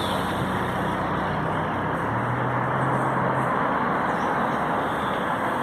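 Street traffic noise with a motor vehicle's engine running close by, its low hum shifting in pitch about two seconds in, over a steady hiss of road noise.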